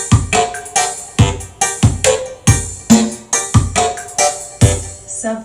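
Sound-check music with a steady kick drum about twice a second and keyboard notes, played through a PA system of an 18-inch subwoofer and 12-inch mid-high speakers.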